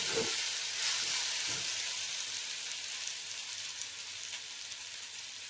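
Sorghum grains with fried onion, green chilli and curry leaves sizzling in hot oil in a pan. The sizzle slowly dies down after the stove has been switched off.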